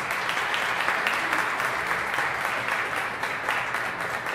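Audience applauding, many hands clapping together, easing off a little near the end.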